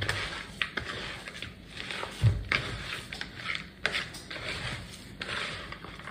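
Hands squeezing and kneading ground meat, eggs and crushed saltine crackers in a plastic mixing bowl, in strokes about twice a second, with a dull bump about two seconds in.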